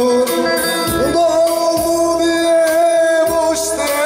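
A man singing a Turkish folk song (türkü) to his own bağlama (long-necked lute). About a second in he holds one long steady note.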